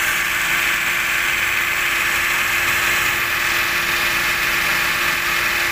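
Maruti Alto 800's three-cylinder petrol engine idling steadily with the air conditioning on, under a steady whirring hiss and a faint constant hum. It holds an even idle under the AC load, its misfire cured by new valves and valve seals.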